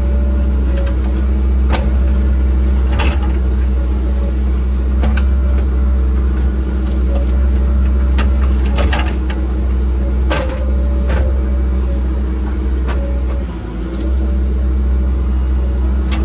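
Engine of heavy land-clearing equipment running steadily at working throttle while it tears into brush, with scattered sharp cracks and clanks. The engine sound dips briefly a little before the end.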